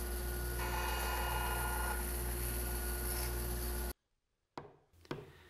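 Bandsaw running with a steady low hum while its blade cuts a walnut strip for a bridle joint; a higher-pitched cutting tone rises over the motor for about a second and a half near the start. The machine noise cuts off abruptly near the end, followed by two faint taps of a chisel cleaning out the joint waste.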